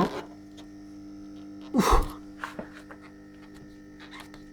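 Steady electrical mains hum with a few small handling clicks. About two seconds in there is a short, loud burst of breath from a person.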